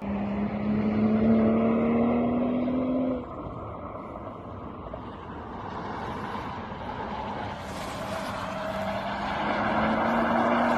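A sports car's engine runs at a steady note that climbs slowly, over a haze of road and tyre noise. The note drops away about three seconds in and comes back, rising again, near the end.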